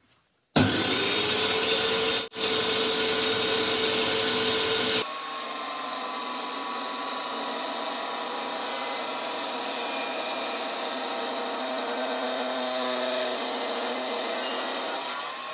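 Homemade table saw starting with a quick rising whine and running steadily, its tilted blade then cutting into a block of wood. The sound changes abruptly twice.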